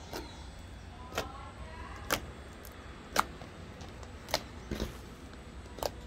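Slime clicking and popping as fingertips poke down into it, a small pop about once a second. The pops are faint, not very loud.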